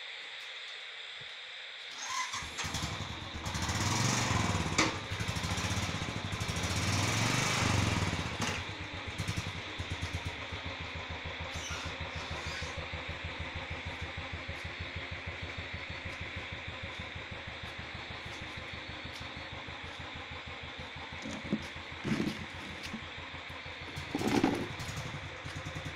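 A vehicle engine starts about two seconds in, runs louder for several seconds, then settles into a steady, evenly pulsing idle, with two brief louder sounds near the end.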